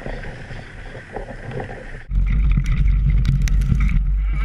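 Tandem downhill mountain bike riding fast over dry dirt, heard from a bike-mounted camera: rushing wind and tyre noise with small rattles. About two seconds in it jumps to a much louder low rumble of wind and tyre noise from a camera down by the front fork, with sharp clicks of gravel and rattles.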